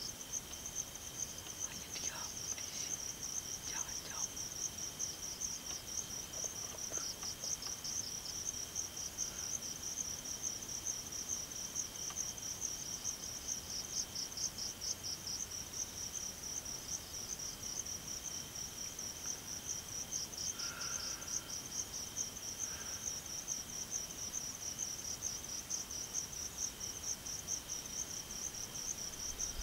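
Night chorus of crickets: a continuous high, fast-pulsing trill over a steadier, lower continuous tone.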